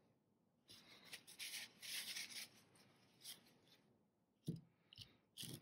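Faint rubbing and scraping, then a few light clicks near the end: hands handling small metal engine parts on a workbench.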